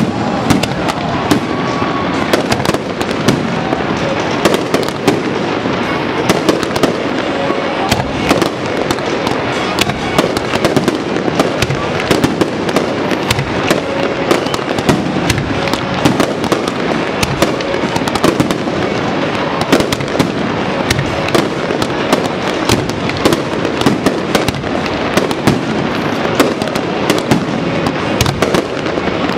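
Aerial fireworks display: many sharp pops and bangs in quick, continuous succession over a steady crackle.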